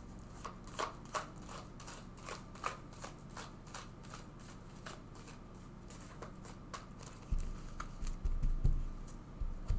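Oracle cards being shuffled and drawn by hand: a run of quick, crisp card clicks and slides, then several dull thumps in the last few seconds as cards and deck are set down on the table.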